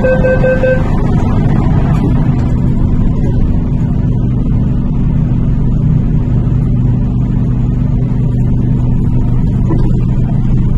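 A door-closing warning tone sounds until about a second in. After it comes the steady low hum of an MTR K-Train's motors and running equipment as the train starts to pull out of the platform.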